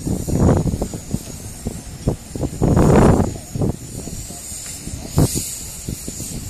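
Wind buffeting the microphone in irregular gusts of low rumbling, the strongest about three seconds in, over a steady high hiss.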